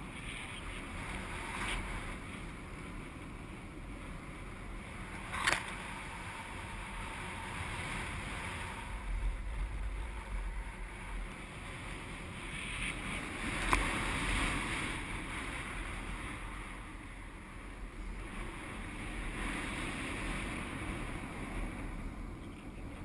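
Steady rush of air over a GoPro's microphone as a paraglider flies, with two brief sharp clicks, about five and fourteen seconds in.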